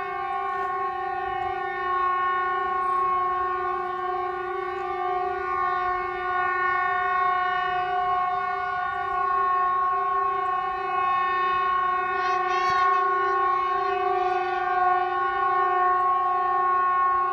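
Unexplained droning sound in the sky: one steady, horn-like tone with many overtones, holding the same pitch throughout and swelling slightly in level. Short chirps come in about twelve seconds in and again a little later.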